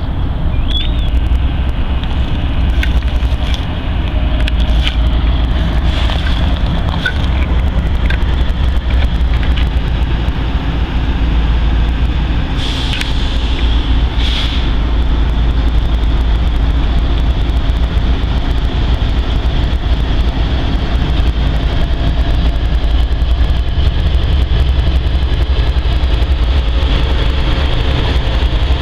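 Norfolk Southern diesel freight locomotives passing close by, their engines a deep steady rumble, with two short clicks about halfway through.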